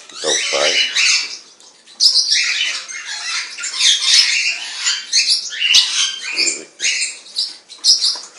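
Captive parrots giving harsh, overlapping squawks and screeches, one call after another.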